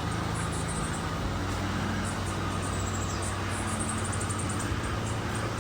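Steady outdoor background: a low, even mechanical hum under a wash of noise, with faint high chirps near the middle.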